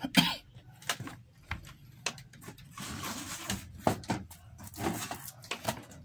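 Scattered light clicks and knocks with some rustling, the sound of hands working near the setup. The washing-machine motor is not running yet.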